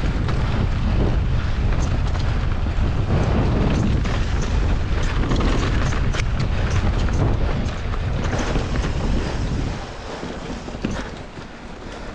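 Wind buffeting the action camera's microphone as a mountain bike descends at speed: a heavy low rumble, with the tyres and bike rattling over the dirt trail. The rumble eases about ten seconds in.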